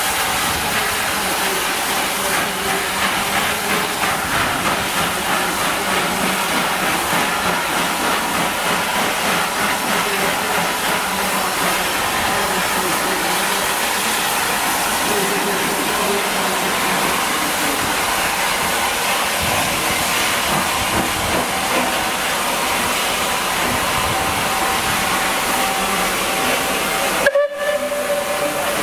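Rebuilt Bulleid Light Pacific steam locomotive No. 34052 pulling away with its train: steady steam hiss with a pulsing exhaust beat. The sound drops out for a moment near the end.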